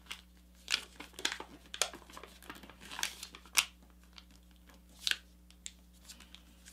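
A sheet of paper being folded and pressed flat by hand: irregular crinkles and crisp rustles as the layers are flattened, the sharpest about three and a half seconds in and again about five seconds in.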